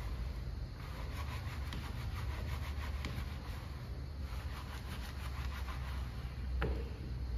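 Brushes scrubbing a wet, soapy alloy wheel in quick, repeated back-and-forth strokes, over a steady low rumble.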